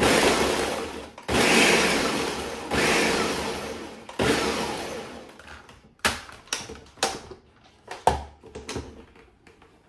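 Ninja blender pulsing pecan sandies cookies into fine crumbs. Four pulses of about a second each run back to back, then about five short, quick pulses follow.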